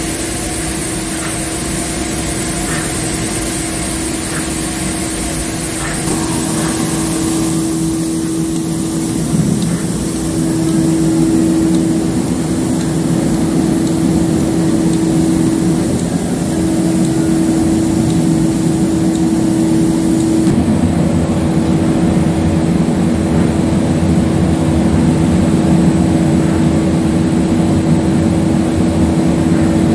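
Steady machine noise from an industrial infrared drying tunnel and its wire-mesh conveyor line: a continuous hum with one strong steady tone. Faint regular ticks sound over the first six seconds, and the noise changes character about 7 and 20 seconds in.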